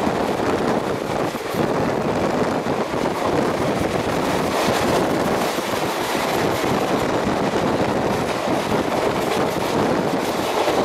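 Passenger coaches of the 22865 Mumbai LTT–Puri Superfast Express running at speed, heard from on board. The wheels on the rails and the rushing air make a steady, even noise.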